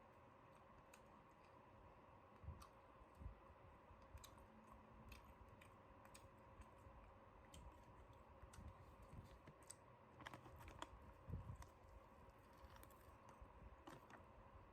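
Near silence, with faint scattered clicks and a few soft knocks.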